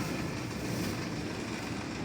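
Steady mechanical running noise: a continuous low rumble with a hiss over it.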